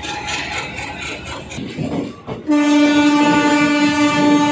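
Diesel locomotive horn starting suddenly about halfway through and holding one long, steady, loud blast. Before it there is only general station noise.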